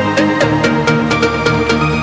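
Background music: electronic dance track with a steady beat.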